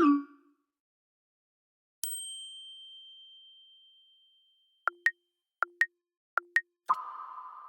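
A sequence of iPad system sound effects. About two seconds in, a single high chime dings and fades slowly. Then come three quick two-note blips, each stepping up in pitch. Near the end a fuller, chord-like alert begins.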